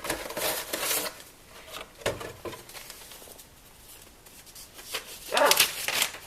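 Cardboard box and paper packaging being handled and rustled in crackly bursts: one at the start, a short one about two seconds in, and a louder one near the end.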